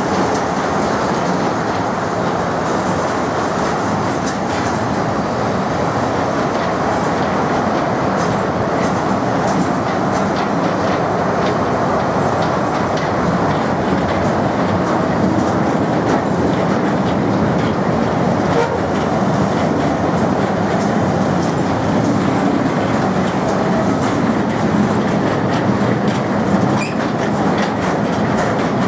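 Covered car-carrier wagons of a loaded freight train rolling past close by, a steady rumble of wheels on rail with frequent clicks as the wheels run over the rail joints.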